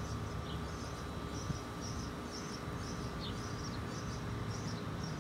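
Outdoor ambience: short high chirps repeating about two a second, some with a quick falling note, over a steady low hum.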